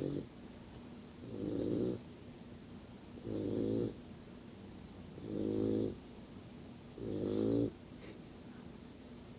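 Yellow Labrador retriever puppy snoring in its sleep: the end of one snore, then four low, buzzy snores about two seconds apart, each lasting about half a second, that stop for the last second and a half or so.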